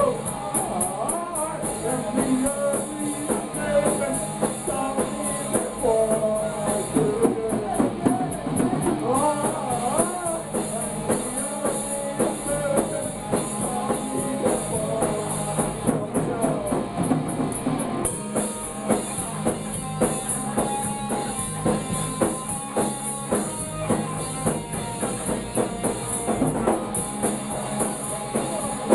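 Punk rock band playing live: electric guitar and drums, with a man singing into a microphone, heard through a digital camera's built-in microphone.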